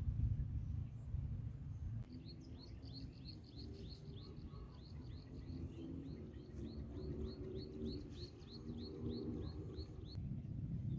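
A bird calling a long, regular run of short, high, downward-slurred notes, about three a second, starting about two seconds in and stopping near the end. Before it begins there is a low rumble, like wind on the microphone.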